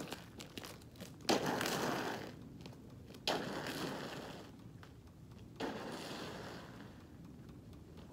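Boots scraping and crunching across an ice-glazed driveway: three long scrapes about two seconds apart, each fainter than the last.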